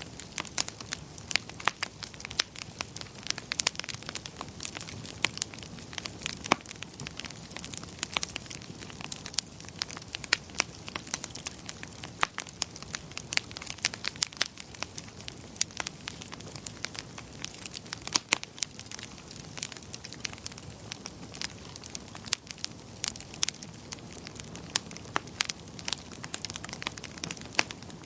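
Fireplace fire crackling: frequent, irregular sharp snaps and pops over a steady soft hiss.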